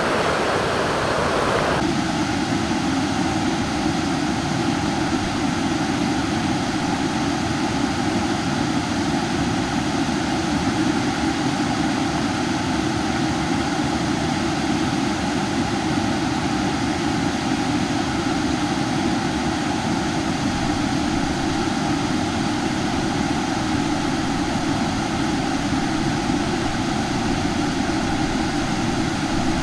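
Small waterfall: a steady, even rush of falling water, its tone shifting slightly about two seconds in.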